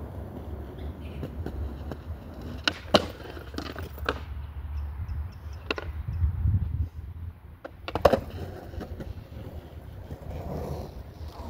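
Skateboard wheels rolling with a steady rumble, broken by several sharp clacks of the board, the loudest about 3 seconds in and again about 8 seconds in: tail pops and landings during trick practice.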